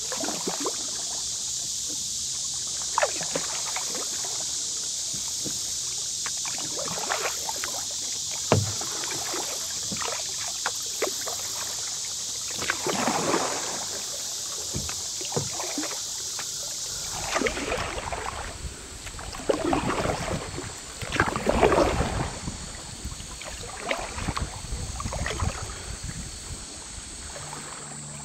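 Kayak paddle blades dipping and splashing in river water, a stroke every second or two, busier and louder in the last third. A steady high hiss runs underneath and drops away about two-thirds of the way through.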